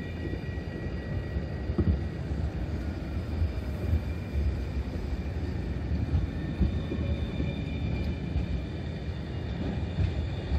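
Alstom Regio Citadis light-rail tram running past close by and moving off along the track: a steady low rumble of wheels on rail, with faint high whines above it and a few light knocks.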